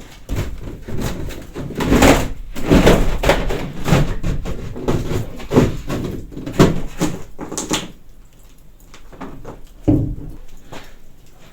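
Irregular knocks, bumps and scraping with a low rumble, dense for about eight seconds, then sparse, with one more solid knock near ten seconds in.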